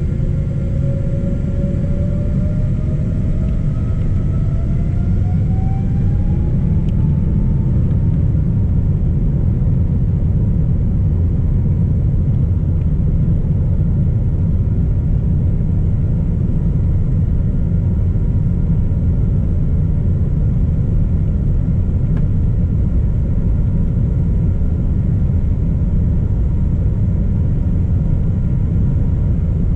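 Boeing 777-200 jet engines spooling up: a whine rising in pitch over the first several seconds, then settling into a loud, steady rumble at high thrust.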